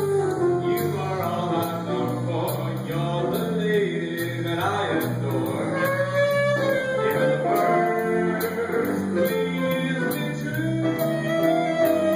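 Small jazz band playing a jazz standard live, with a singer.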